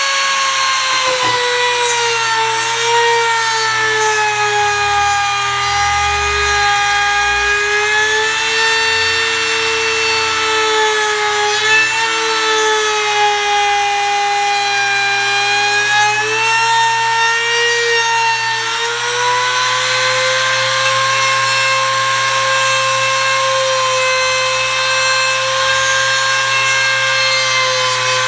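Compact trim router running at high speed while its bit cuts a recess into a wooden board: a steady high whine whose pitch sags a little twice as the bit bites into the wood, then climbs back and holds for the last third.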